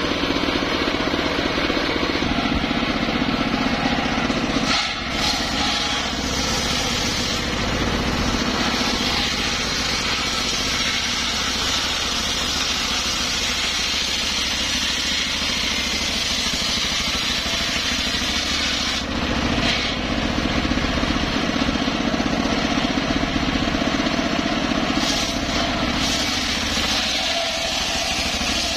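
Engine-driven sawmill circular saw running steadily and ripping lengthwise through a teak log, the engine's drone under the rasp of the blade in the wood. The sound drops out briefly twice, about five seconds in and again near twenty seconds.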